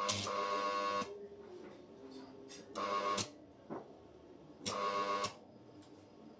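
Arc welding in three short bursts: a run of about a second, then two half-second tack welds, each starting and cutting off sharply with a steady hum under the crackle.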